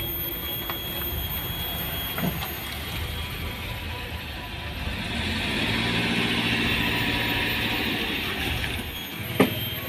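A motor vehicle's engine running, swelling louder for a few seconds in the middle and then fading. A single sharp knock comes near the end.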